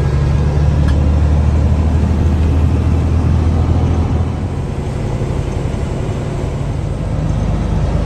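A big truck's diesel engine running, with road noise heard from inside the cab as a steady low drone. The drone eases off a little about four seconds in and builds again near the end as the truck turns into the field.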